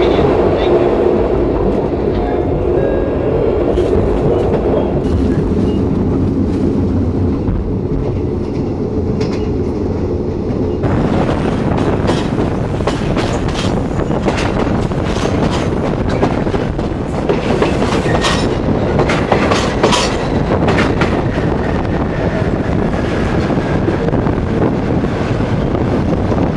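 Passenger train running on the rails: a steady rumble of the coach's wheels, with clickety-clack clicks as they pass over rail joints and points. About eleven seconds in the sound turns brighter and sharper, the wheels now heard through an open window.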